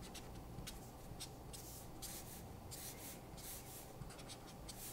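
Felt-tip marker (Prismacolor) dabbing and dragging short strokes on paper: a faint, irregular run of soft scratchy strokes, about two or three a second, as leaf marks are laid onto a tree.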